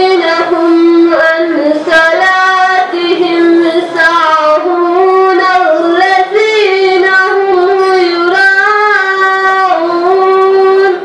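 Quran recitation chanted melodically in a high voice, with long held, gliding notes; the voice stops suddenly just before the end.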